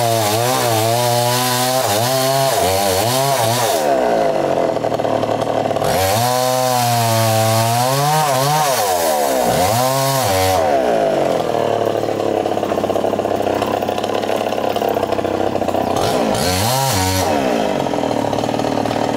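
Two-stroke chainsaw revved up and down again and again, its pitch rising and falling with the throttle. From about eleven seconds in it is held at a steady high speed for several seconds, as when cutting through wood, then is revved once more near the end.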